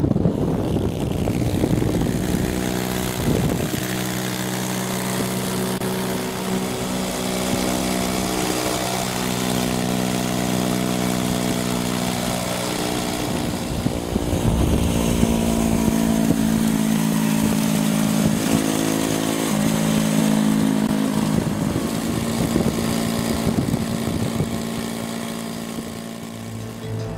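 Kikker 5150 Hardknock bobber motorcycles running on the road, the engine note held fairly steady and shifting in pitch a few times.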